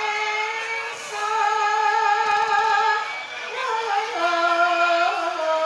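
A female Javanese sinden singing long held notes with vibrato and short sliding steps between pitches, in a Banyumasan gending with gamelan accompaniment.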